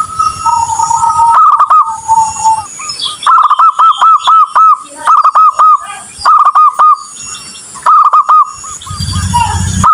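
Zebra dove (perkutut) cooing: several quick phrases of short, looping coo notes, repeated one after another. A faint, steady high-pitched tone runs behind, and a low hum comes in near the end.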